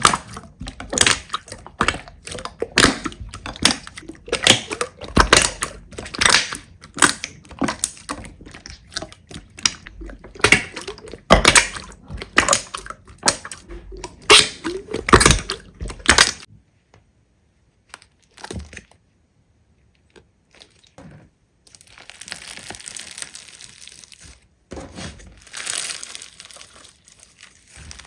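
Slime being squished and pressed by hand, giving dense crackling and popping. The crackling stops a little past halfway, then a soft hiss and more crackling follow near the end.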